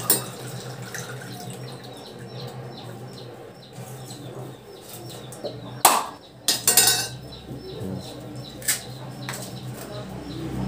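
A knife striking a whole coconut shell to crack it open: scattered sharp knocks, the loudest about six and seven seconds in, with another near nine seconds.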